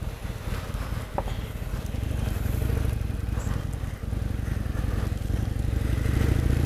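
Harley-Davidson Sportster 883 Superlow's air-cooled V-twin engine running under way, with a hiss of wind and wet-road noise above it. The engine grows louder and rises slightly in pitch near the end as the bike picks up speed.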